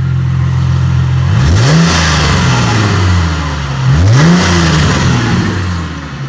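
2006 Ford Mustang's V6 engine idling steadily, revved twice, about a second in and again about four seconds in, each rev rising quickly and falling back to idle.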